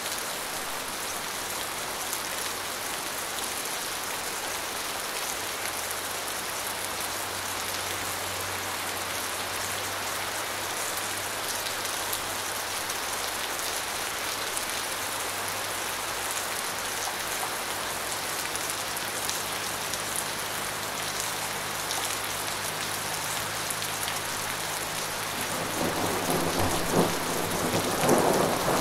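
Steady rain falling in an even hiss, with a rumble of thunder building near the end.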